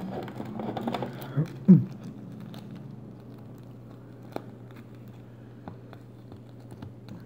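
Foil trading-card booster packs crinkling and rustling as they are handled, with a brief loud sound falling in pitch in the first two seconds, then a few light taps as the packs are set down on the playmat.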